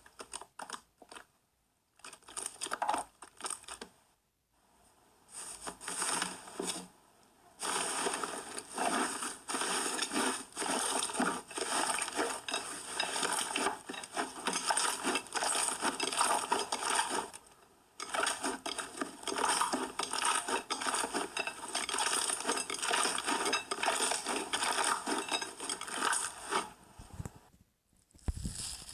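Slime being squeezed and poked by hand, giving dense crackling and clicking. It comes in spells broken by short pauses, with a long busy stretch from about 8 to 27 seconds in.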